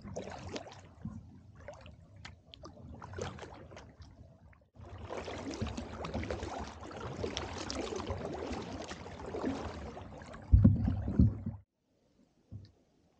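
Kayak paddling: the paddle blades dip and splash, with water dripping and gurgling. A couple of heavy low thumps come near the end before the sound cuts off abruptly into silence.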